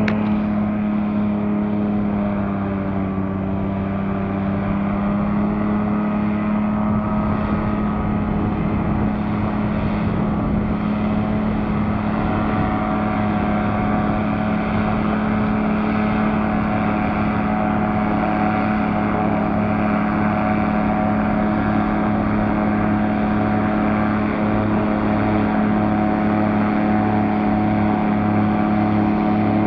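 Police airboat's engine and caged air propeller running steadily as it crosses thin lake ice, a loud pitched drone. The pitch sags slightly about three seconds in and then holds, with a slow throb coming into it near the end.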